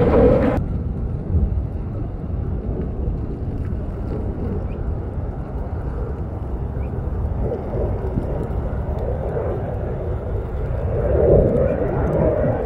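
Fighter jet engine rumbling steadily from a jet in flight overhead, swelling louder near the end as it comes closer.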